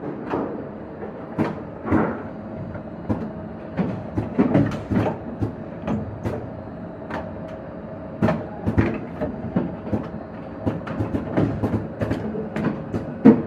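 Automatic MCB testing and riveting machine running its cycle: pneumatic cylinders, clamps and the indexing table clicking and clacking at irregular intervals over a steady hum.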